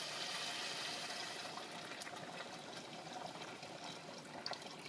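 Chicken broth pouring in a steady stream from a plastic jug into a stainless steel pot of rice, the splashing easing off toward the end. A couple of light clicks near the end.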